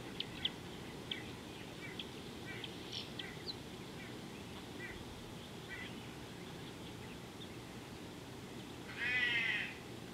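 Scattered short, high bird chirps in the first few seconds, then one louder drawn-out animal call, under a second long, about nine seconds in.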